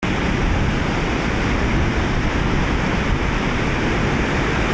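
Sea surf washing over a boulder shore, a steady loud rush of waves, with wind rumbling on the microphone.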